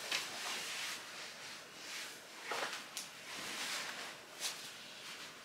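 Rustling and brief swishes of a vegan leather jacket being pulled on and settled on the shoulders.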